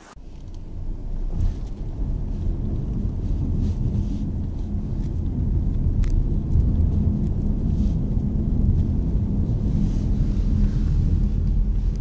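Car driving along a highway: a steady low rumble of road and engine noise.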